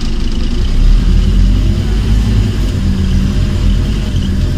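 Scania OmniCity N230UD double-decker bus's five-cylinder diesel engine under way, heard from inside the passenger saloon: a steady low drone that grows louder about a second in as the bus pulls along.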